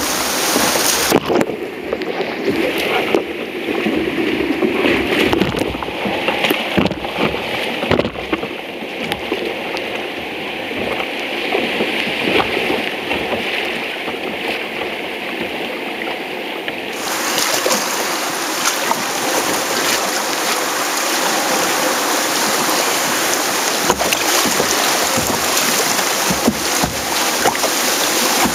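River water rushing and splashing around a sit-on-top kayak running whitewater, picked up by a camera on the bow. It is duller and muffled through the first half, then a brighter, fuller wash of rapids from about halfway through, with scattered small knocks and splashes.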